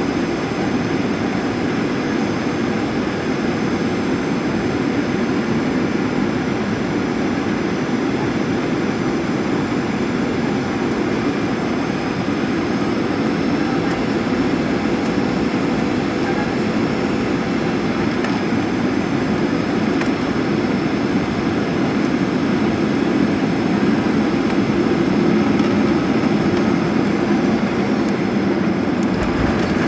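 Steady engine and airflow rumble inside the cabin of a Boeing 737 airliner in flight on its arrival, with a faint steady hum. It grows slightly louder in the last few seconds.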